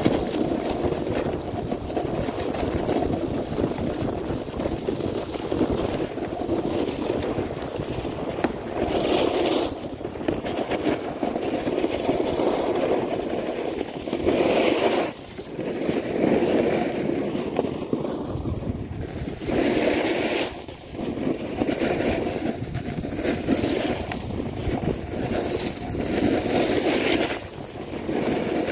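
Snowboard base and edges sliding and scraping over the snow, with wind on the microphone. The noise drops briefly a few times as the board changes edge between turns.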